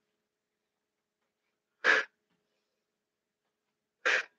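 A woman's short, sharp breaths out, twice, about two seconds apart, in time with her knee lifts.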